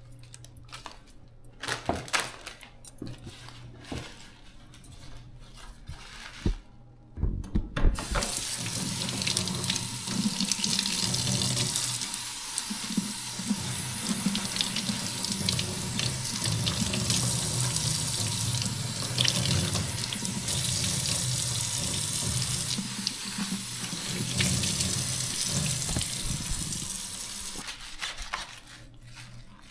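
A few scattered knocks, then a kitchen tap turned on about eight seconds in, water running steadily into the sink for about twenty seconds until it is shut off near the end.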